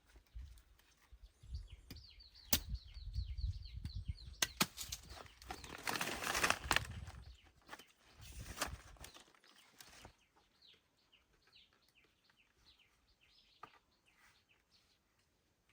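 Rustling of banana plants with several sharp knocks, loudest around the middle, then quieter. A small bird chirps in quick repeated trills early on and again more faintly toward the end.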